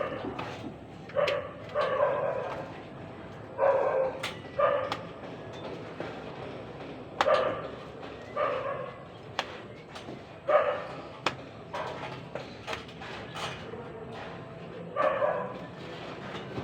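A dog barking again and again, the barks mostly coming in pairs with short gaps between, along with a few sharp knocks.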